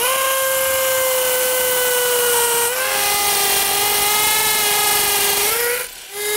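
Cordless DeWALT drill with a masonry bit boring through a plastic transition track into a concrete floor. The motor spins up with a rising whine and then runs steadily, its pitch dropping a little about three seconds in. It stops briefly near the end and starts again.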